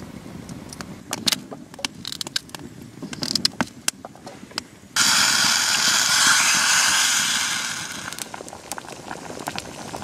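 Campfire wood crackling with sharp pops. About five seconds in, water is poured from a metal cup into a steel cooking pot on the fire, a steady splashing pour that starts suddenly and fades out over about three seconds.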